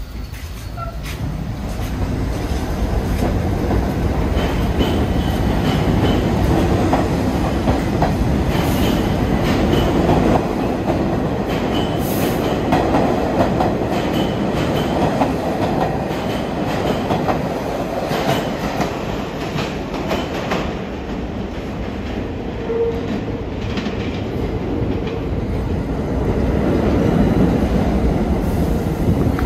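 New York City subway train running on the Brighton Line, its wheels clattering over the rail joints with a faint high wheel squeal at times. The sound builds over the first few seconds, then holds loud and steady.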